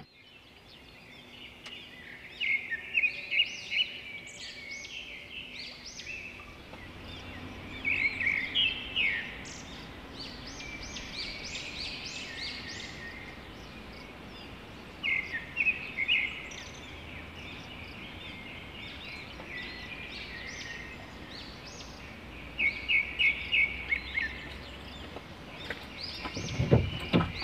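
Forest birds singing: short bursts of quick, high chirping notes every few seconds, over a faint steady background.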